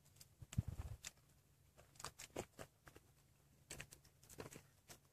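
Near silence with a few faint, scattered clicks and light taps.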